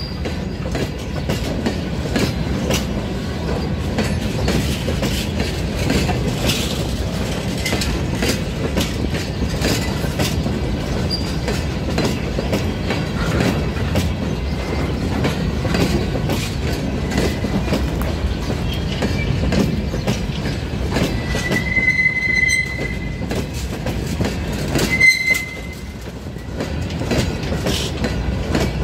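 Freight train's open gondola wagons rolling past close by: a steady rumble with a fast run of clicks as the wheels cross rail joints. The wheels squeal briefly twice near the end.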